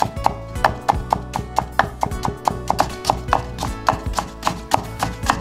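Chef's knife chopping stacked potato slices into thin matchsticks on a wooden cutting board, a quick even rhythm of about four cuts a second, over background music.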